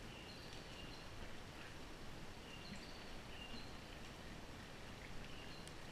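A bird calling repeatedly, short high whistled notes at two pitches coming about once a second, over a steady rush of stream water.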